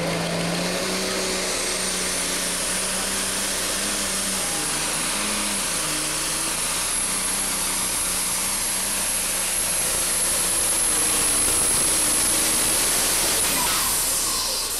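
Deutz super stock pulling tractor's turbocharged diesel engine running at full power under load during a pull, with a high whine that rises over the first two seconds and holds steady. Near the end the whine cuts off and the engine note falls away as the pull ends.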